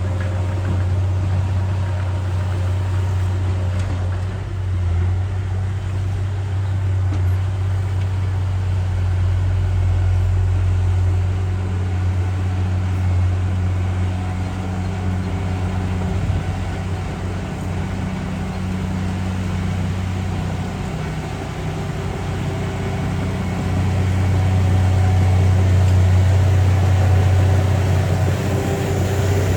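Heavy earthmoving machinery's diesel engine running with a steady low hum, getting louder about three-quarters of the way through.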